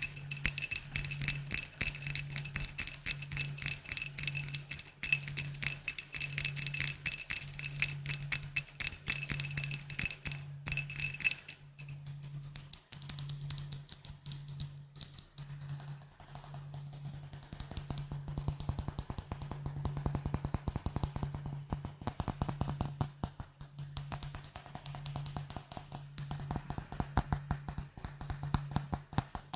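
Fast tapping on glass bottles, a dense run of quick ticks. For the first ten seconds or so the glass rings with high tones; after that the taps go duller with no ring, while a low pulse beats about once a second underneath.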